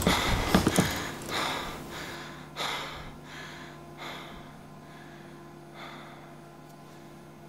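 Loud music cuts away in the first second, leaving a man breathing hard in a string of sharp gasps, under a second apart at first and thinning out toward the end. A faint steady hum lies underneath.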